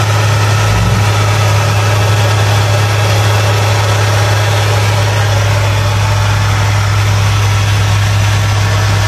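Fiat Palio Weekend's 16-valve petrol engine idling steadily with the bonnet open, a constant low hum.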